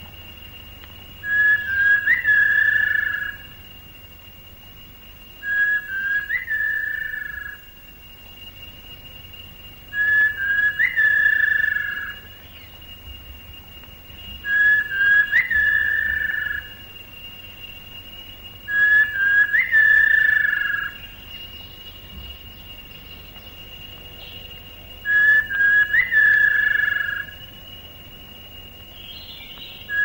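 Large-footed wren babbler giving its monotonous, melancholic whistled call. Each call is a short note and a quick upward flick running into a drawn-out whistle about two seconds long, repeated six times, every four to six seconds. A steady high tone runs underneath throughout.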